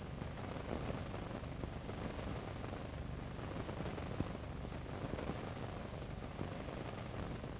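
Steady hiss and low electrical hum of an old film soundtrack, with a faint click about four seconds in.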